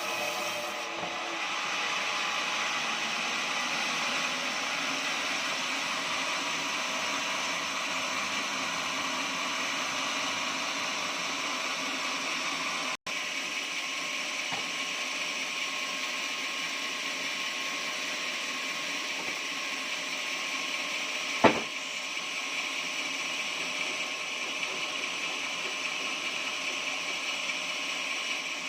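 Portable sawmill running steadily as it saws through an oak log, with one sharp knock about two-thirds of the way through.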